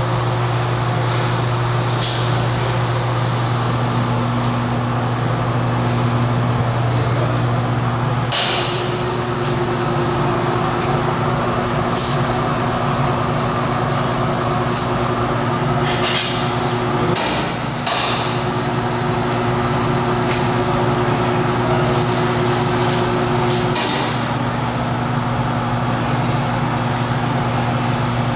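Wulftec turntable stretch wrapper running: a steady low motor hum, with higher drive tones that cut out and come back a few times and several brief sharp clicks or hisses from the machine's mechanism.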